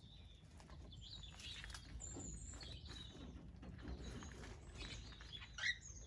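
Cockatiels chirping: a run of short high chirps and whistles that slide up and down, with one louder call near the end, over a faint low rumble.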